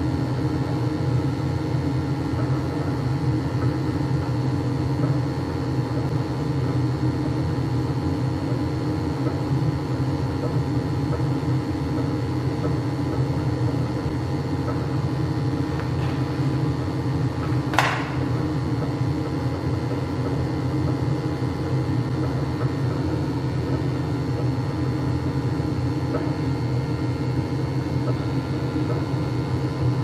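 Gas-fired Weil-McLain hot water boiler running on its burner, a steady even rumble and hum. A single short sharp click comes about two-thirds of the way through.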